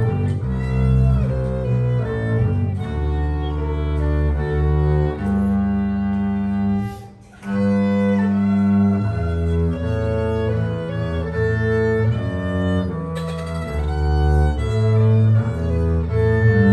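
Violin and double bass playing a bowed duet: low held bass notes under the violin's higher line, the notes changing every second or so, with a brief break about seven seconds in.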